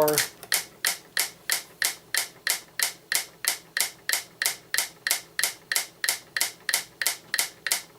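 Franz FB-4 electric metronome clicking steadily at 184 beats a minute, about three clicks a second. Its beat is driven mechanically off the mains line frequency, and it holds time closely with a second metronome set to the same tempo.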